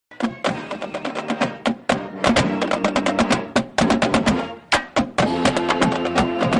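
Marching band playing: rapid drum strikes, snare among them, over held pitched horn notes.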